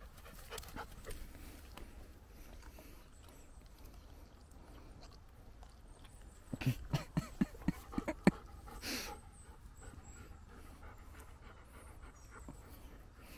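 Golden retriever panting right at the microphone: a quick run of about eight loud breaths about halfway through, then one longer breathy burst.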